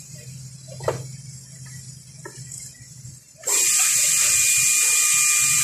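A low hum with a couple of knocks, then a machine or tool starts suddenly about three and a half seconds in: a loud, steady hiss with a high whine.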